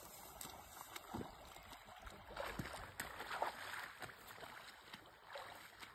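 Faint splashing and sloshing of shallow creek water over the steady run of the stream, heaviest about two to three and a half seconds in.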